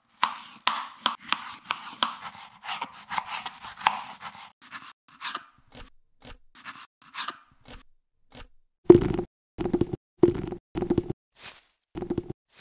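Kitchen knife slicing through cucumber onto a wooden cutting board: a quick run of chopping strokes, about three or four a second, then sparser single cuts. Near the end come about five louder, heavier knocks.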